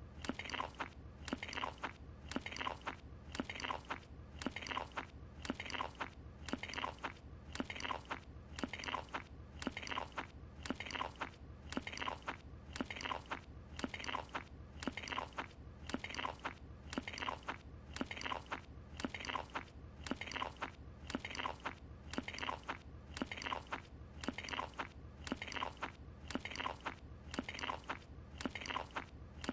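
Cartoon character Carl Wheezer chewing and crunching with his mouth: one short eating sound looped over and over at an even rhythm.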